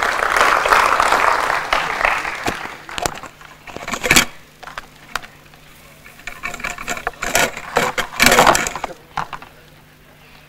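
Handling noise from a head-worn microphone being taken off: rustling and scraping as it rubs past the hair and ears, then several sharp knocks and rubs as it is handled.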